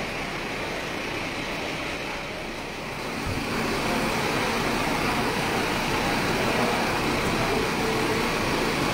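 Steady rumble of road traffic and vehicle engines, which gets louder about three seconds in. Before that, quieter indistinct background noise.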